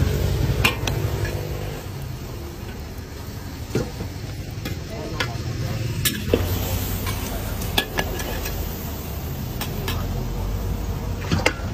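Noodles frying and being stirred in a large wok: steady sizzling over a low rumble, with a metal ladle knocking and scraping against the wok now and then.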